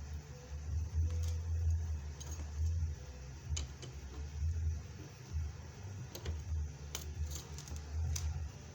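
Scattered small clicks and light metallic rattles from pearl beads and a bead rivet setting machine being handled and pressed onto a chiffon scarf, over an uneven low rumble.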